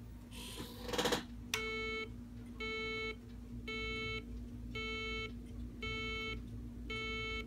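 Chrysler electronic voice alert system, just powered up on the bench, sounding its warning chime through a small computer speaker: six evenly spaced beeps about a second apart. A short rustle comes just before the first beep.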